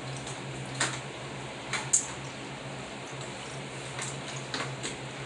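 A few short, sharp clicks and snaps from eating snow crab legs: shell and meat being handled, over a steady low hum.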